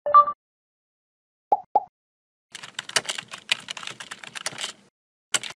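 Computer keyboard typing: a quick run of key clicks lasting about two seconds, followed by a single click near the end. It is preceded by a short tone at the start and two brief blips about a second and a half in.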